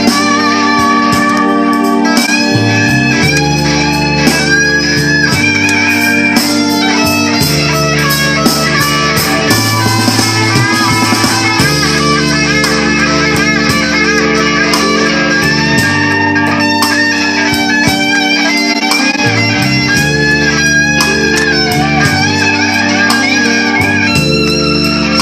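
One-handed electric blues lead on a Telecaster-style electric guitar, notes fretted on the neck and bent up and down, over a blues backing track with bass notes changing every second or two.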